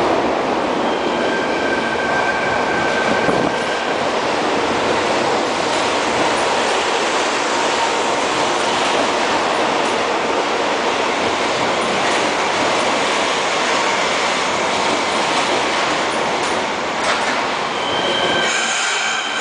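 Fukuoka City Subway 1000 series train running into an underground station platform, with a steady, dense rumble of wheels and running gear as the cars pass. Near the end the rumble falls away as the train comes to a stop, leaving a few steady high tones.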